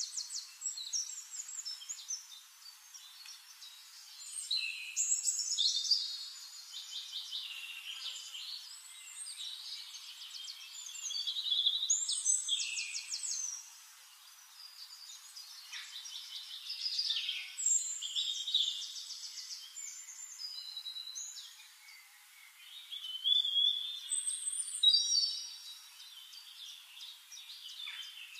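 Songbirds chirping, whistling and trilling, several calls overlapping, swelling louder and fading back every few seconds, with no low sounds underneath.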